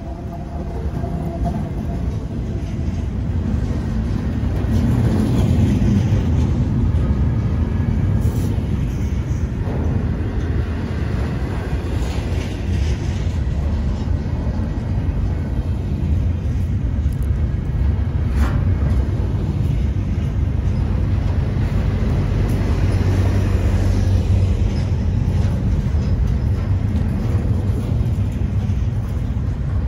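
Double-stack intermodal freight cars rolling past close by: a steady low rumble of steel wheels on the rails that builds over the first few seconds, with a few sharp clicks.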